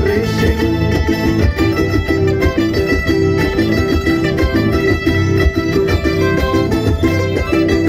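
Qhaswa folk dance music played on plucked-string instruments, going on steadily in an even rhythm.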